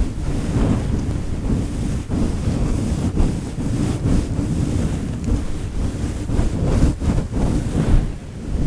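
A fluffy microphone windscreen being rubbed and stroked close to the microphone: a dense, low rustling that rises and falls unevenly.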